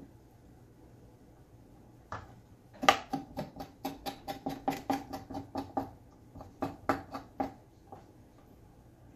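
Kitchen knife striking a plastic cutting board in a quick run of short, sharp taps, about four or five a second, as it cuts through chicken drumstick tendons; a single knock comes about two seconds in, and the first tap of the run is the loudest.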